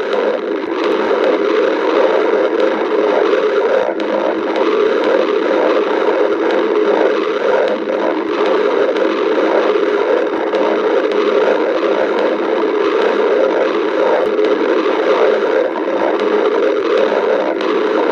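Stomach growling: a continuous rumble from the belly that goes on without a break.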